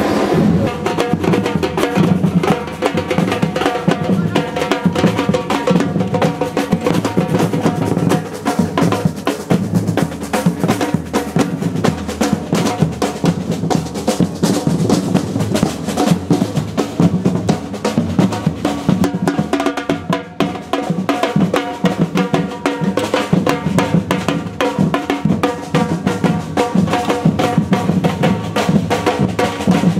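Street drum band playing a fast, steady rhythm on large painted bass drums beaten with mallets, together with snare drums.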